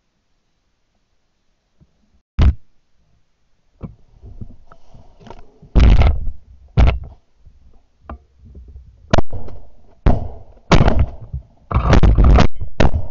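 Shotgun shots fired at geese flying over, about ten sharp blasts. The first comes alone about two seconds in, and the rest follow in quick succession in the second half, mixed with gun-handling noise.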